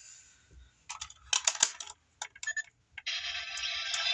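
Small hard plastic toy pieces being handled, giving a quick run of clicks and rattles about a second in and a few more clicks after. From about three seconds in a steady buzzing hiss begins and carries on.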